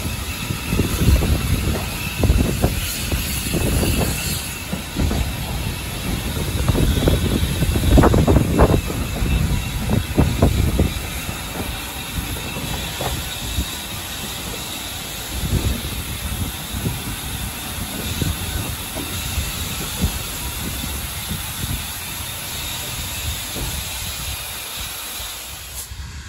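Heritage steam train carriage rolling over points and rail joints: irregular knocks and thumps from the wheels under a steady rumble and hiss. The knocking is heaviest for the first ten seconds or so, then settles into quieter, steadier running.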